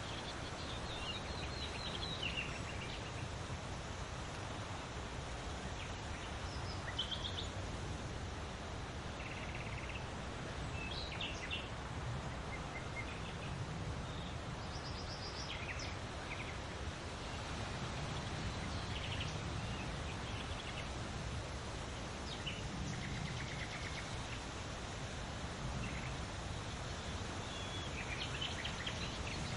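Large leaves rustling steadily in the wind, with short bird chirps scattered throughout.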